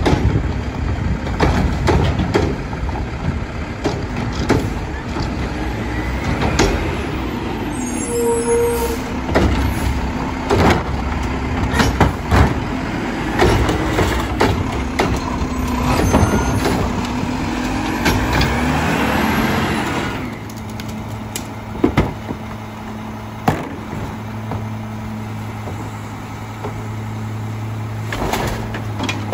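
A McNeilus front-load garbage truck with a Curotto-Can arm tipping a cart. The diesel engine speeds up and slows as the hydraulics work, with repeated clanks and bangs from the arm and the cart. From about 20 s in, this gives way to the steadier low running hum of a rear-load garbage truck, with a few separate knocks.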